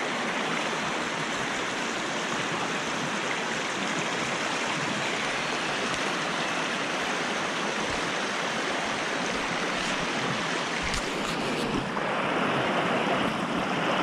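Shallow river water rushing and splashing steadily close to the microphone, with a couple of low thumps about eight and eleven seconds in and the water a little louder near the end.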